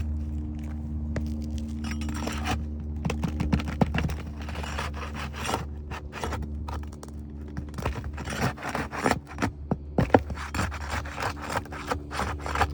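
Pry bar scraping and prying under asphalt roof shingles, with sharp clicks and knocks as the roofing nails are worked loose, over a steady low hum.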